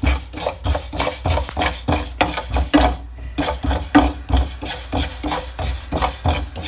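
A wooden spatula stirs black sesame seeds dry-roasting in a nonstick frying pan, making repeated scraping strokes of the seeds across the pan, about three a second, with a short pause about three seconds in.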